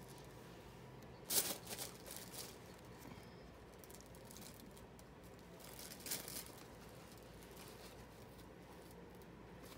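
Packaging and small items being handled: brief rustles and crinkles about a second in and again around six seconds, over a faint steady room hum.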